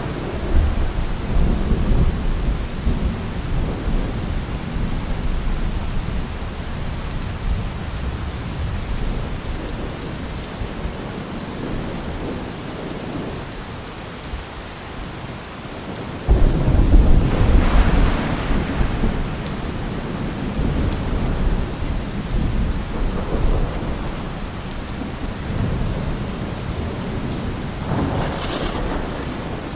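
Thunderstorm: steady heavy rain with rolling thunder. About halfway through a sudden loud thunderclap breaks in and rumbles on for several seconds, and a smaller rumble of thunder follows near the end.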